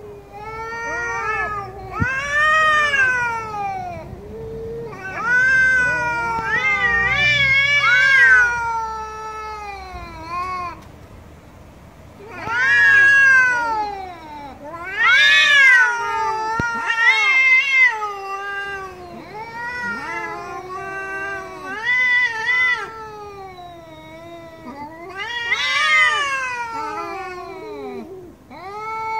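Two tabby cats yowling at each other in a territorial standoff: long, wavering caterwauls that rise and fall in pitch, one after another, at times overlapping.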